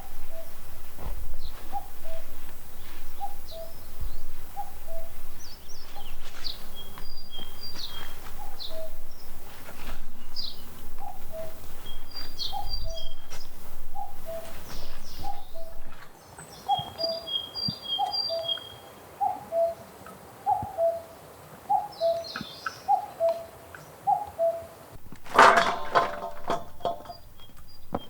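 Birds calling: one repeats a two-note call, the second note lower, about once a second, while other birds chirp higher. A short loud clatter sounds near the end.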